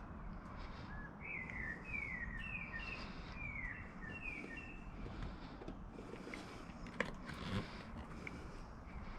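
A bird singing a quick run of short down-slurred chirps in the first half, over steady outdoor background noise. A single sharp click about seven seconds in.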